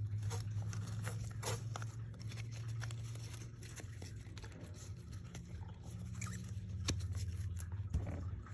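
A stack of baseball trading cards handled and flipped through by hand: quick light clicks and slides of card stock, irregular, over a steady low hum.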